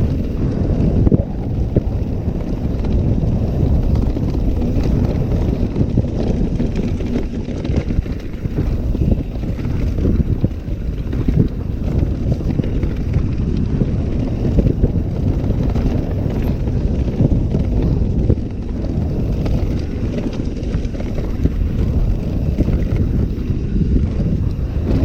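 Wind buffeting the microphone over the steady rumble and rattle of a mountain bike's tyres running down a rough dirt downhill trail.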